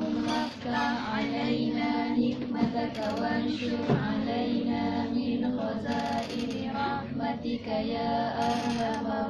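Female voices singing a slow melody with held notes, with a short sharp knock about four seconds in.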